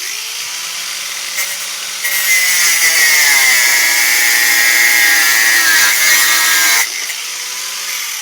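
Drill Master 4.5-inch corded angle grinder (10,000 RPM) running free, then cutting through thin steel pencil rod for about five seconds: much louder, its whine dropping under load. Near the end the cut finishes and the grinder goes back to free-running.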